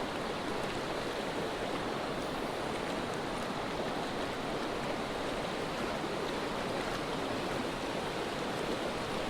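A small mountain creek running, a steady, even rush of flowing water.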